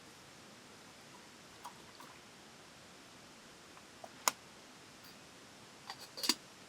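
Scattered light clicks and knocks over a faint steady hiss: one sharp click about four seconds in, and a quick cluster of clicks near the end.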